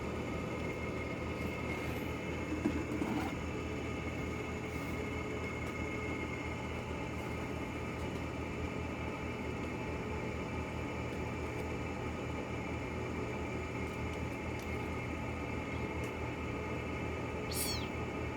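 A steady mechanical hum made of several held tones at an even level. A brief soft bump comes about three seconds in, and a short high falling chirp near the end.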